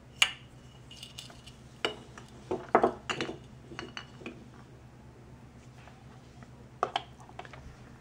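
Hard plastic toy fruit pieces clacking and knocking as they are set down on a table and a plastic cutting board. There is one sharp knock near the start, a quick cluster about two and a half to three seconds in, and a pair of knocks near the end.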